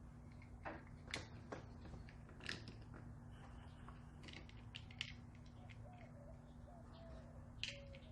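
Scattered light clicks and taps from hand work on car parts, over a steady low hum, with a faint wavering squeak near the end.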